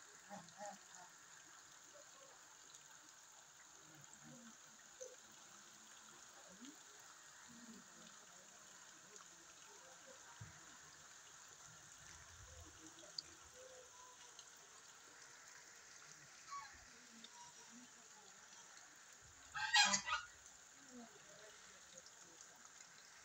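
Rain falling steadily on standing water, with a domestic goose honking loudly a few times in quick succession near the end.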